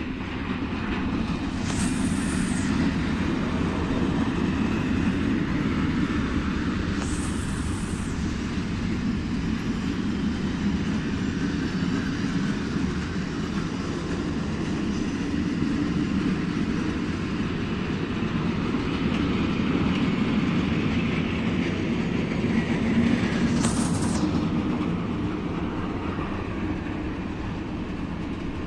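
Container freight train rolling past on the rails: a steady rumble of wagons and wheels on track, with three brief high-pitched hisses about two, seven and twenty-four seconds in.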